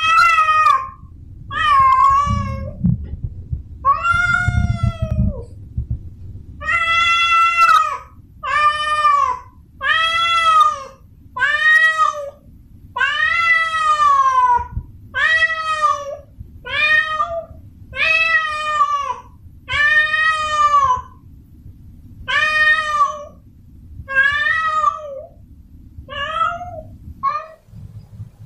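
A tomcat in heat giving its mating call: about twenty drawn-out yowling meows, each rising and then falling in pitch, repeated roughly once a second over a low background rumble.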